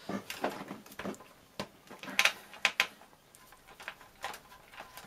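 A small screwdriver working Phillips screws out of a PlayStation 4's metal heatsink bracket and shield: irregular light clicks and taps of metal on metal.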